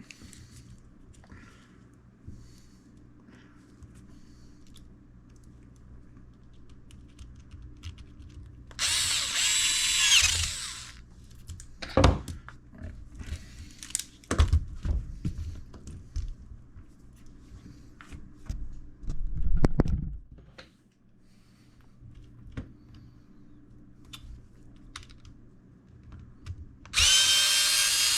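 Small electric drill-driver whining as it drives a screw, for about two seconds around nine seconds in and again near the end, its pitch rising as it spins up. In between, a few knocks and clicks of small parts being handled.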